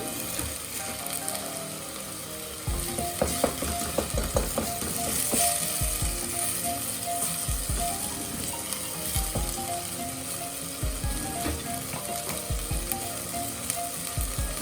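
Minced lamb sizzling as it fries in hot oil on high heat. From about three seconds in, a utensil knocks and scrapes against the pan as the mince is stirred.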